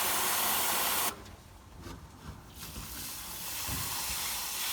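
Water hissing from a hose spraying into a cavity under a concrete slab to flood it. The hiss cuts off suddenly about a second in, then builds back gradually near the end.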